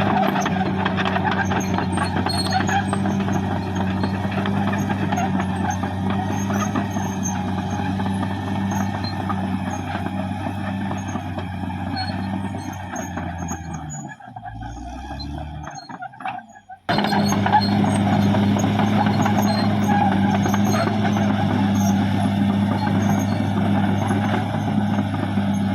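Caterpillar D6R XL bulldozer's diesel engine running with a steady drone. About fourteen seconds in the revs drop and falter, and after a short break it runs steadily again.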